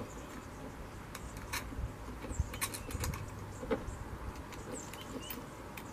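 Scattered light clicks and taps as the wooden parts of a homemade breakdown saw are handled and fitted together.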